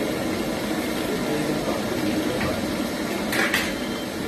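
Steady rushing of river water, with a brief scrape about three and a half seconds in.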